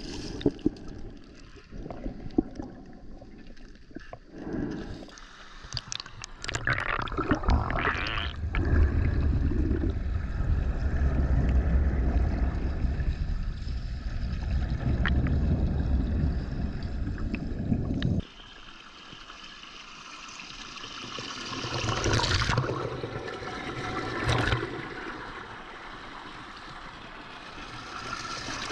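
Thermal pool water gurgling and bubbling, heard underwater, with a heavy low rumble through the middle that cuts off suddenly; softer swells of churning water follow.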